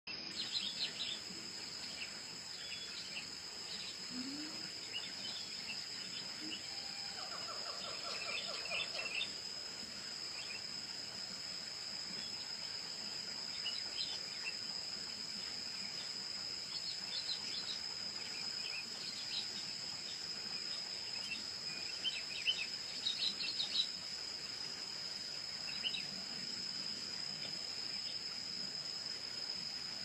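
A steady high-pitched insect trill, like crickets, with short high bird chirps scattered through it and a lower rattling call about eight seconds in.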